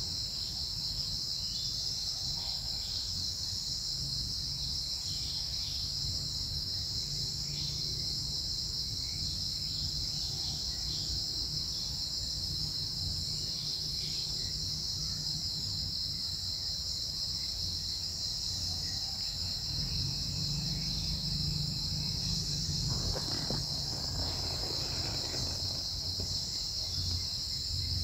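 A steady, high-pitched insect chorus running without a break, over a low rumble, with a faint brief noise a little past the middle.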